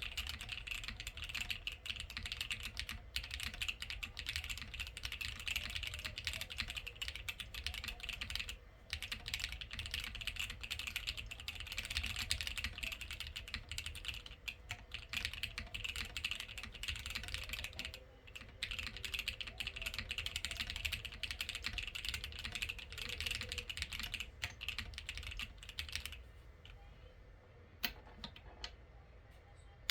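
Custom plateless TKL mechanical keyboard with lubed Gateron Ink Black linear switches and PBT keycaps being typed on continuously, a sound the owner finds a bit hollow. The typing breaks off briefly twice, stops about four seconds before the end, and is followed by a single click.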